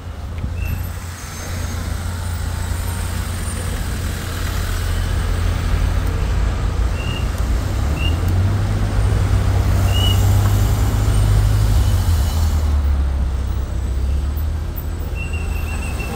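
Road traffic: engines rumbling and a heavy vehicle passing, growing louder toward the middle and easing off in the last few seconds. A few short high chirps sound over it.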